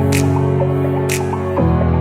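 Background music: sustained synth chords with a steady beat of about one hit a second, the chord changing near the end.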